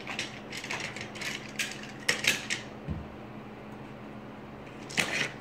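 Light plastic clicking and rattling, irregular, in a cluster over the first two and a half seconds, then a single sharp click near the end.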